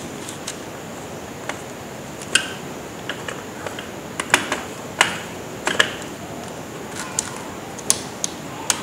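Irregular sharp clicks and clacks of hard plastic parts as a copier's drum unit housing is handled and parts are pressed and snapped into it, over a faint steady hiss.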